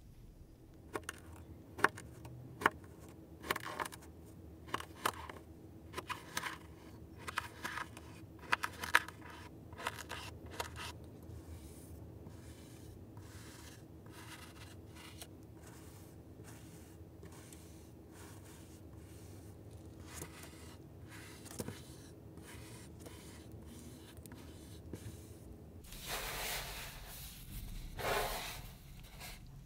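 A plastic knife slicing through packed kinetic sand, a quick series of sharp cuts at first, then softer scraping strokes. Near the end, hands pull and squeeze the sand in two louder rustling swells.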